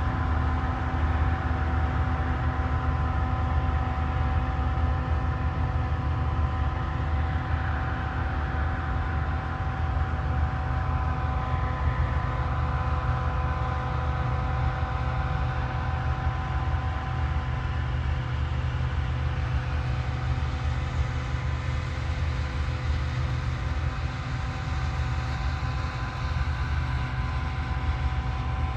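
Combine harvester running steadily at harvest work: a constant low engine drone with a few unchanging whining tones over it.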